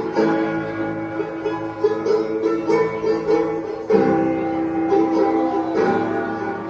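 Instrumental background music led by a plucked string instrument over held tones, with a new phrase starting about four seconds in.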